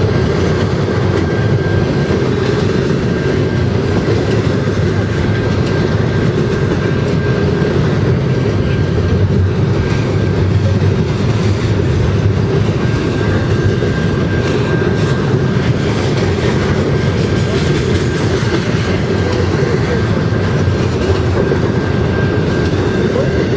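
Double-stack intermodal container well cars of a freight train rolling past at speed: a steady, loud rumble of steel wheels on rail, with a thin, steady high whine running under it.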